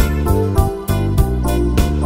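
Instrumental passage of a song: pitched instruments playing held notes with a steady beat and no singing.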